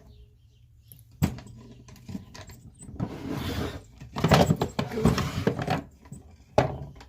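A National Cabinet machinist's toolbox being handled: a sharp knock, then a few seconds of rattling clatter, and another knock near the end.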